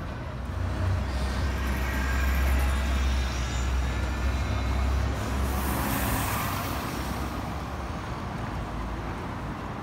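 City bus engine rumbling low as the bus pulls away along the street, the rumble fading after about five seconds. A sharp hiss comes about six seconds in.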